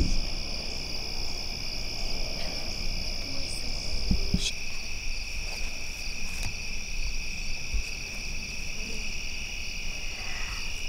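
Evening chorus of crickets and other insects: steady high-pitched trilling in two pitches. About halfway through, the higher trill fades and the lower one grows stronger. A couple of faint low thumps come about four seconds in.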